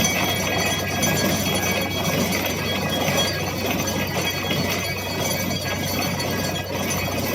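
Borewell drilling rig running: a steady low engine hum under a dense, even rushing noise.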